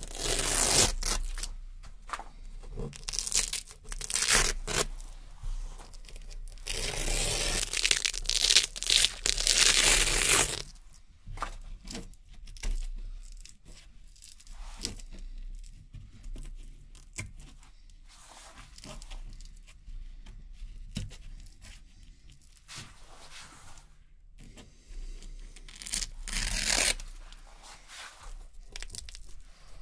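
Strips of Velcro hook-and-loop tape being pulled off a board, one rip after another. There are short rips in the first few seconds and one long continuous rip from about seven to ten seconds in, then softer, slower peels, with louder rips again near the end.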